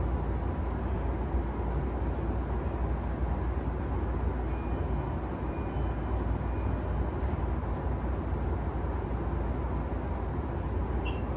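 Steady running noise of a JR East E233-0 series electric commuter train, heard from inside the car: a continuous low rumble with a thin, steady high whine. A small brief squeak comes near the end.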